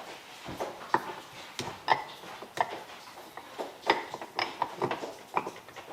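Irregular light clicks and clinks of small metal power steering rack parts being handled and fitted together on a workbench.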